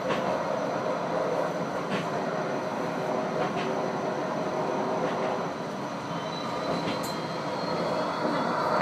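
Bombardier Flexity 2 light-rail tram running along the track, heard from the front cab: a steady rumble of wheels and traction equipment with a few faint clicks.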